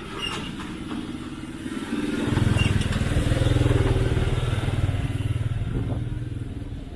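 A motor vehicle's engine passing close by: it grows louder about two seconds in, then fades away over the next few seconds.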